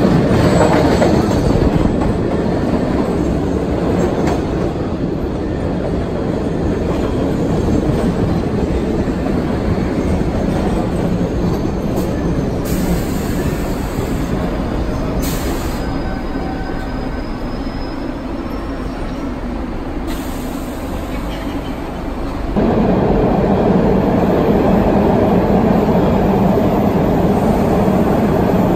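MBTA Red Line subway train pulling into an underground station and running along the platform, a steady rumble of wheels and motors with faint wheel squeal. About 22 seconds in the sound cuts abruptly to a louder rumble of an Orange Line train entering another underground platform.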